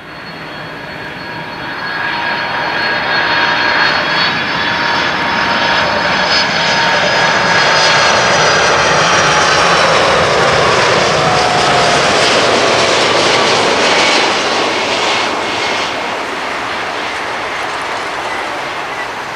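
Boeing 747-400F cargo jet on landing approach, its four jet engines making a dense rumble with high whining tones that slide down in pitch as it flies past. The sound builds at first, is loudest through the middle, and eases off near the end.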